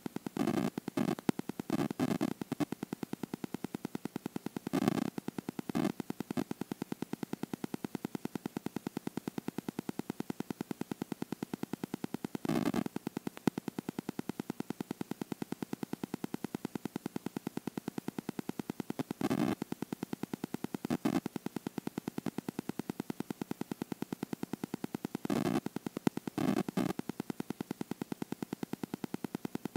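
Ground fireworks fountains (gerbs) spraying, a steady hiss with a fast, even pulsing buzz, broken every few seconds by short louder bursts.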